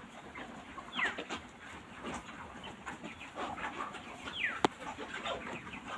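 A shed of chickens calling, many overlapping short chirps with two clear falling peeps standing out, and one sharp click a little past the middle.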